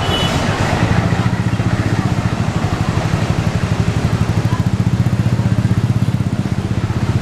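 Large diesel bus engine idling with a steady, rapid pulse.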